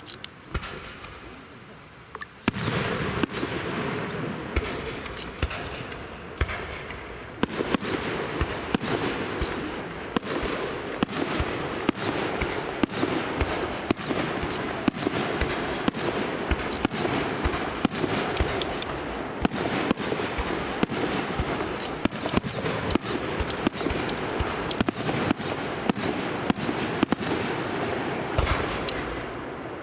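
Fireworks barrage: about two seconds in it starts suddenly, and dense crackling with many sharp bangs in quick succession follows, easing slightly near the end.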